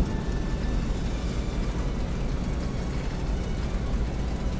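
Steady low rumble of a car on the move, picked up inside the cabin by a dashcam: road and engine noise.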